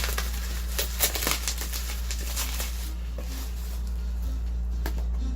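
Cardboard box and camera packaging being handled: a run of short rustles and light knocks, the sharpest about a second in, thinning out after three seconds, over a steady low hum.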